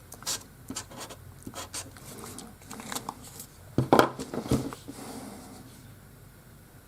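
Irregular light clicks and taps of wooden boards and a saw rig being handled and adjusted, with a few louder knocks about four seconds in.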